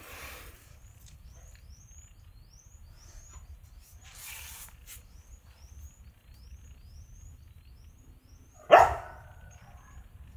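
A baby sparrow cheeping over and over, short high rising chirps two to three a second. Near the end a Kombai dog gives one loud bark.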